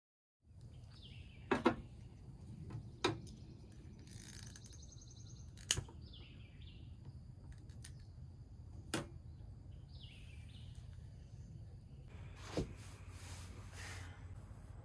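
Outdoor ambience: a bird calling every four to five seconds over a low steady hum, broken by five sharp clicks or snaps.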